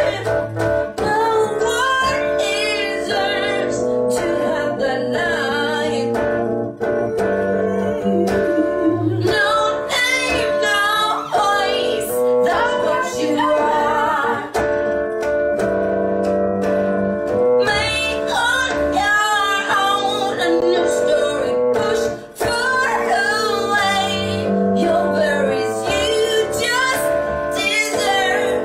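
Women singing with vibrato over an instrumental accompaniment.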